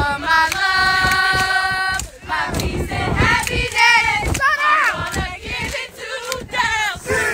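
A group of women sings a held chord together for about two seconds, then breaks off into many short, high, rising-and-falling calls and cheers, with hand claps throughout.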